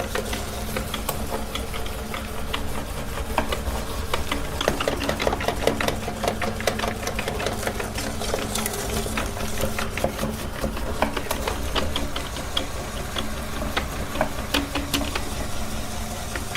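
Electric meat grinder running, a steady motor hum with rapid, irregular clicking as it grinds.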